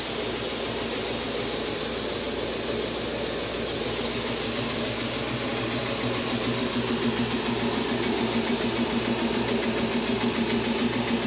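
Boiler room machinery running steadily: a continuous hiss with a low hum, taking on a slight quick flutter in the second half.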